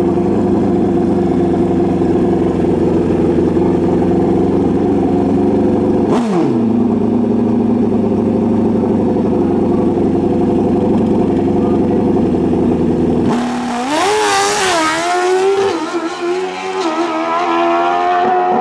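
Drag motorcycle's engine running steadily at the start line, its pitch dropping sharply to a lower steady note about six seconds in. About thirteen seconds in it launches, revs rising and dipping several times through gear changes as it accelerates away down the strip.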